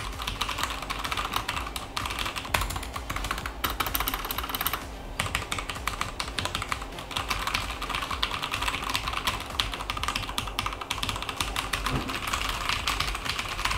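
Gigabyte Force K83 mechanical keyboard being typed on fast and steadily, its Cherry MX Red linear switches giving a run of quick key clacks. There is no separate tactile click, only each key bottoming out.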